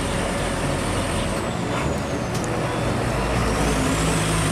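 Heavy Hino diesel tanker trucks running as they drive along the road: a steady low engine rumble with road noise, and a high whine that slides down and then rises again.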